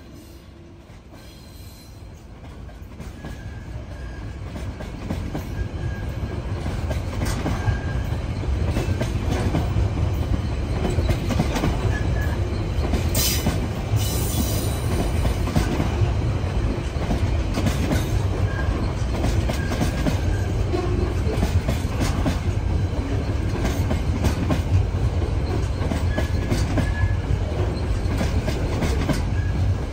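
Container wagons of a diesel-hauled freight train rolling past on jointed track, with a steady low rumble and wheels clattering over the rail joints. It grows louder over the first several seconds and then holds steady, with faint wheel squeal at times and one brief sharp high screech about thirteen seconds in.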